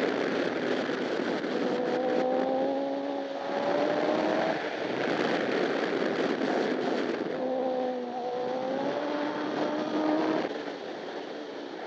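Honda CBR1000RR superbike's inline-four engine heard onboard under heavy wind rush, its note climbing slowly twice with a drop between. Near the end the sound eases off.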